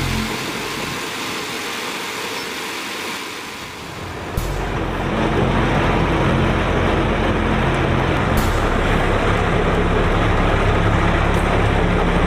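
A steady rushing hiss, then an abrupt change about four seconds in to a snow loader's engine running steadily with a low hum as it works.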